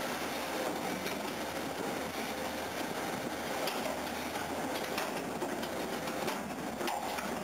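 Steady mechanical background hiss and hum of a working yard, with a faint steady tone and a few light clicks in the second half.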